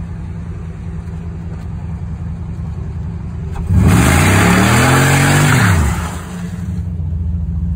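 2006 Chevrolet Monte Carlo SS's 5.3-litre V8 idling, then revved hard for about two seconds, a bit past halfway, as the front tires spin and squeal on the pavement in a short burnout; the revs climb, then fall back to idle.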